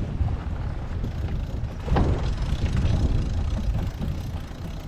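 Wind buffeting the microphone aboard a sailing yacht under way, a steady low rumble with a brief gust about two seconds in.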